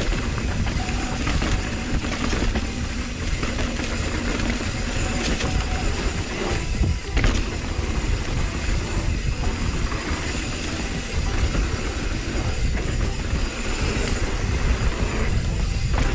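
Aluminium hardtail mountain bike ridden along a trail: steady low rumbling wind and tyre noise, with frequent rattles and knocks over bumps.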